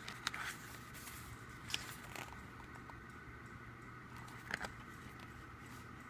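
Paper and card of a K-pop album and its photo book being handled: a few short rustles and taps, about four in all, over a steady low background hum.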